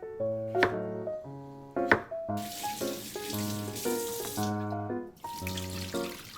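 Water running from a kitchen tap into a sink, once for about two seconds and again from about five seconds in, over light background music with a plucked, piano-like melody.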